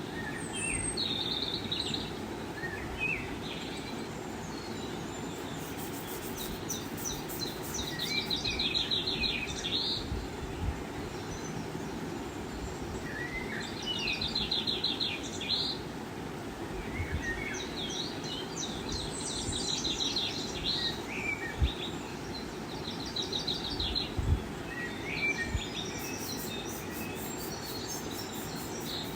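Birds chirping and trilling in short bursts every few seconds over a steady background hiss. Two brief low thumps come near the end.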